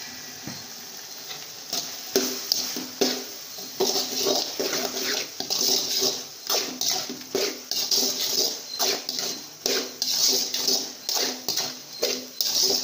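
A perforated steel ladle scrapes and stirs an onion-tomato masala around a metal kadai. The metal-on-metal scrapes and clatters begin about two seconds in and come roughly twice a second, over a steady frying hiss.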